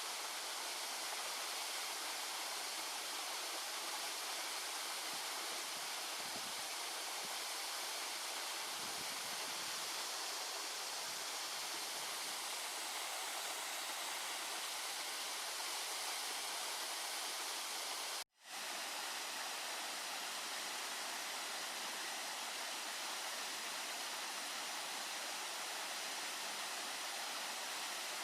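Steady rushing of water from a waterfall of three side-by-side falls, each about 10 m high. The sound breaks off for an instant about two-thirds of the way through, then resumes unchanged.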